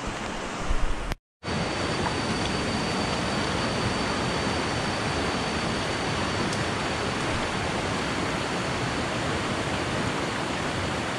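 Steady rushing of a river flowing over rocks and shallow rapids, an even hiss. A few low knocks from handling come in the first second, and the sound drops out completely for a moment just after, before the water sound resumes and holds steady.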